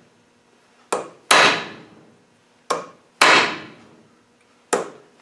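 Ball-pein hammer striking a rounded punch against the steel lock nut on a Land Rover LT85 gearbox shaft, staking the nut's collar into the notch in the shaft so it cannot work loose. There are three pairs of blows, each a short tap followed by a heavier strike that rings out.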